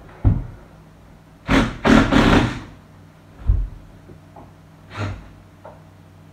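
Knocks and thuds of tools against an old metal radiator wall bracket as it is worked off the wall, with a louder scraping rattle lasting about a second near the middle.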